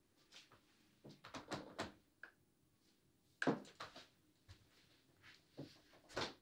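Scattered light knocks and clunks in a small room, as of things being handled and put down on a dresser or in its drawers. A cluster comes about a second in, and single louder knocks come about three and a half seconds in and again near the end.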